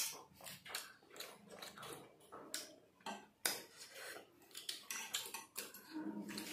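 Metal forks clicking and scraping irregularly against plates as soft, syrup-soaked sweets are speared and eaten, with some chewing. The loudest clink comes right at the start.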